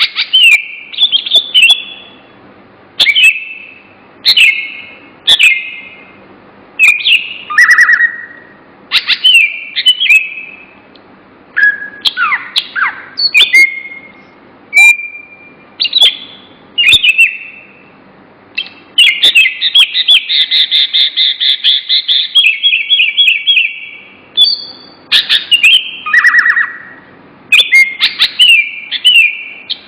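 A songbird singing close and loud: short, clear whistled phrases and chirps repeated every second or two, with a long, rapid trill near the middle.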